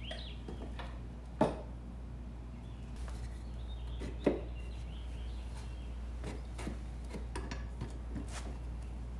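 Mower blade being wedged with a wood block and a tool fitted to the blade bolt: two sharp knocks about a second and a half and four seconds in, then light clicks and clatters of metal and wood handling.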